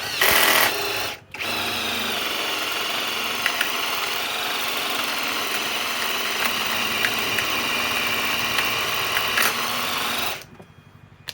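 Hercules HCB84B2 cordless compact impact wrench driving a drill bit into plywood. It gives a short loud burst, stops just over a second in, then spins steadily without hammering and cuts off near the end. The bit is barely cutting and the tool won't go into impact; the owner blames a dull bit.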